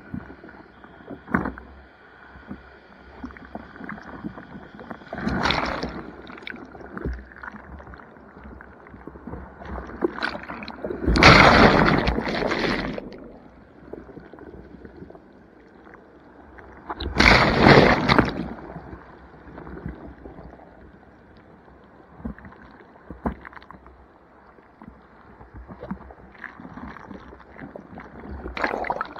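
Ocean surf sloshing around a body board at water level, with three loud rushes of breaking whitewater washing over the board: a short one about five seconds in, then longer ones in the middle and about two-thirds of the way through.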